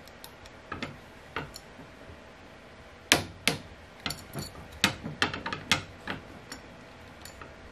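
Sharp metal clicks and taps from hand work on the adjustment screws of an Incra 1000HD miter gauge bar: a few scattered clicks, then a quicker run of them starting with the loudest about three seconds in.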